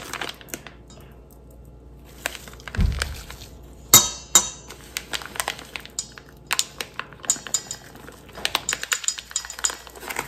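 A metal spoon clinking and scraping against a stainless steel mixing bowl while a teaspoon of turmeric powder is taken from a plastic packet, in scattered light clicks. The loudest is a sharp ringing clink about four seconds in, just after a short low thump.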